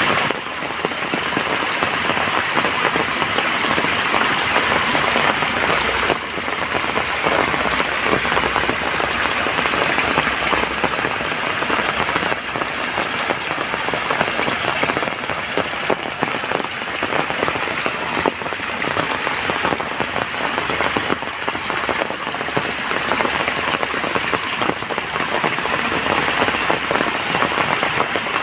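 Heavy rain falling steadily, a dense patter of drops striking surfaces, with a steady thin high whine above it.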